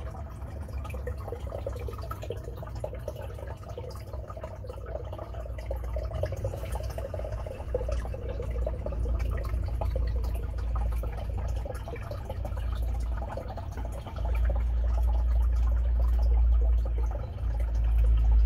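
Water pouring and trickling steadily into a turtle tank, over a low rumble that grows louder about fourteen seconds in.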